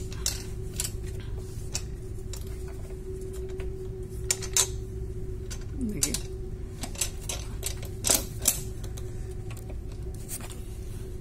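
Scattered metal clicks and knocks as the yoke of an electric valve actuator is handled and fitted over the valve stem, a few louder ones about halfway and about eight seconds in, over a steady hum.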